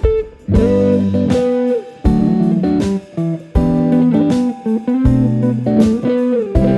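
Background music led by guitar, with plucked notes changing in a steady rhythm.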